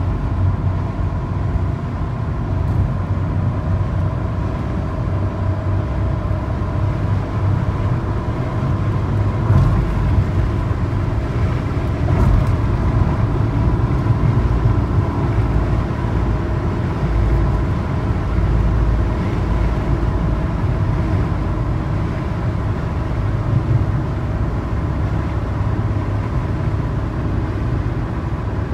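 Mercedes-Benz 300TD turbodiesel cruising at highway speed, heard from inside the cabin: a steady engine drone mixed with road and wind noise.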